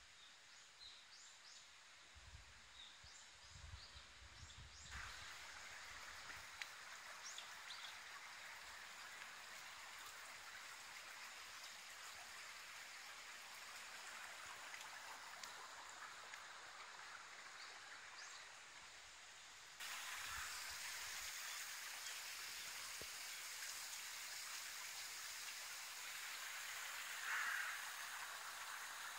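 Faint, steady outdoor rushing noise with a few faint, high bird chirps. The noise gets suddenly louder about five seconds in and again about twenty seconds in.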